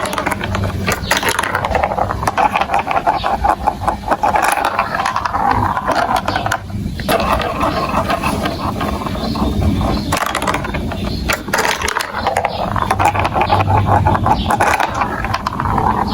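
Marbles rolling and clattering along plastic marble-run track, a dense continuous rattle of clicks that briefly thins out twice.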